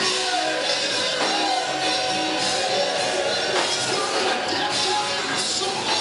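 Live gospel music: a man singing into a hand microphone over a band with electric bass, heard through the church's sound system.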